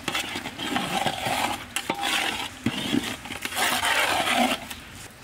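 A long metal spatula stirring and scraping wet rice and buffalo meat around a large metal pot, in three rough stretches with sharp clinks against the pot, stopping near the end.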